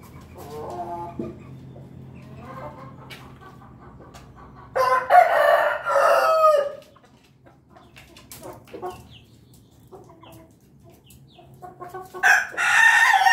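Ayam ketawa ("laughing chicken") rooster crowing twice: about five seconds in and again near the end. Each crow lasts about two seconds and is broken into quick stutters, the breed's laughing crow. Softer clucking comes between the crows.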